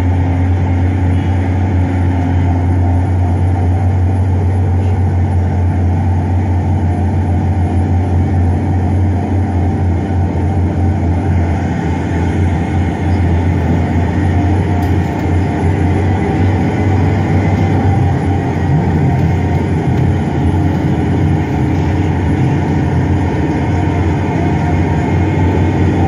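A heavy engine running steadily, a constant deep drone with no change in pace.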